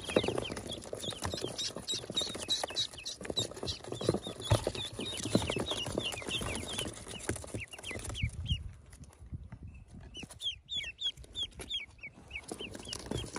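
A box full of ducklings peeping: a constant chorus of short, downward-sliding high peeps, several a second, with scuffling and knocks against cardboard that thin out in the last few seconds.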